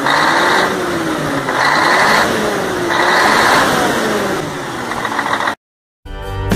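Intro sound effect of an engine revving, with a whine that rises and falls and hissing surges about every second and a half. It cuts off about five and a half seconds in, and music begins near the end.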